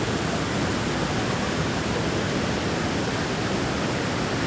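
Steady rushing of a waterfall, a constant full noise with no breaks.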